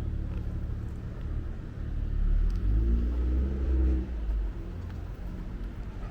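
Street traffic with an engine hum throughout; a motor vehicle passes close by, its low engine rumble swelling about two seconds in and fading after about four seconds.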